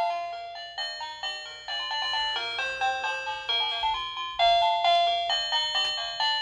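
Magibx toy ATM piggy bank playing its built-in electronic jingle: a chiming tune of quick single notes, each starting sharply and fading.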